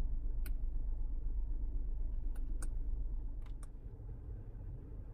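Low steady rumble of a Geely Atlas Pro 1.5-litre turbo SUV, easing off a little about three and a half seconds in, with five short sharp clicks scattered through it.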